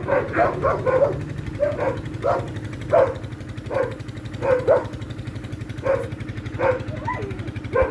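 A dog barking over and over, a dozen or more short barks at roughly one every half second to a second, over a steady low hum.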